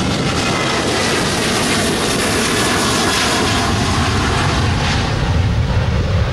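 Boeing 737-800's CFM56-7B jet engines at takeoff thrust: a loud, steady roar as the airliner rolls and lifts off, the low rumble growing stronger near the end.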